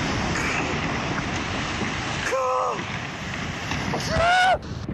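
Tsunami wave breaking over a rocky shore and surging inland: a loud, continuous rush of churning water. A person shouts twice over it, about two seconds in and louder near the end.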